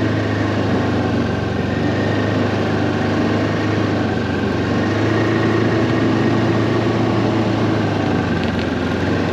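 Ski-Doo Tundra 600 ACE snowmobile's three-cylinder four-stroke engine running steadily while riding along a snowy trail.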